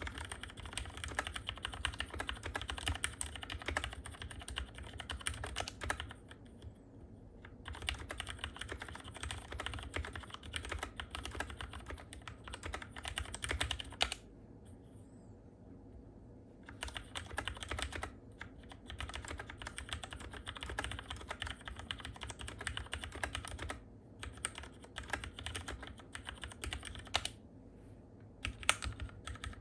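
Keychron K6 mechanical keyboard being typed on steadily, in runs of quick keystrokes broken by short pauses.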